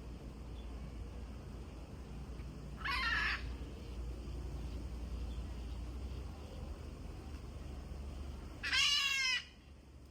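Blue-throated macaw giving two harsh squawks, one about three seconds in and a longer one near the end, over a low steady rumble.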